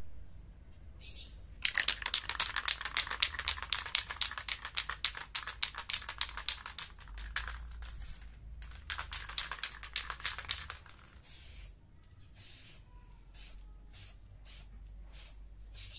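Aerosol spray-paint can being shaken, its mixing ball rattling rapidly for about nine seconds. Then come short spurts of spray paint hissing from the nozzle, several in a row.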